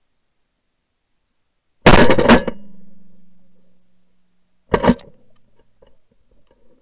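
Shotgun fired twice at a flying goose, the shots about three seconds apart; the first blast has a second crack close behind it and a fading ring after it.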